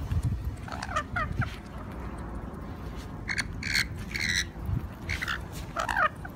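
Rainbow lorikeets giving short, shrill screeches and chatters in three bunches: about a second in, in the middle, and just before the end. A low rumble runs underneath.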